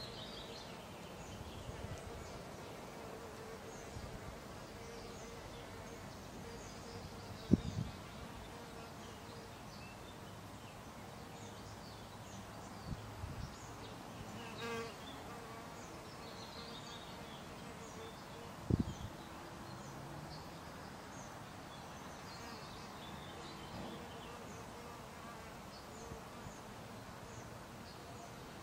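Outdoor ambience: a steady buzzing hum under faint, scattered high bird chirps, broken by two sharp dull thumps, one about a quarter of the way in and one about two-thirds through.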